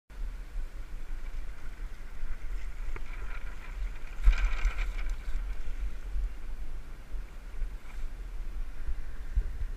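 Wind buffeting the microphone of a camera riding on a sail-powered land yacht as it speeds over hard beach sand, under a steady rushing hiss; the rush swells louder about four and a half seconds in.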